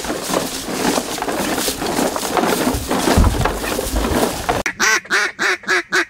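Crunching footsteps on dry leaf litter and the rustle and rattle of gear and decoy bags as hunters walk. About four and a half seconds in, this gives way abruptly to a quick run of mallard quacks, about four a second.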